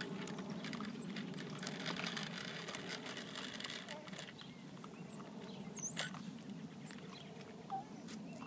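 Hard plastic tricycle wheels rolling over a concrete sidewalk: a steady rattling rumble with scattered sharp clicks.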